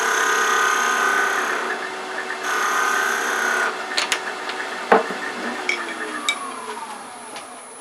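Wood lathe running while a small detail gouge makes light scraping cuts on a small spindle tip. About four seconds in the cutting stops and a few sharp clicks and a knock follow as the tip breaks away in a catch, then the lathe's hum falls in pitch as it spins down.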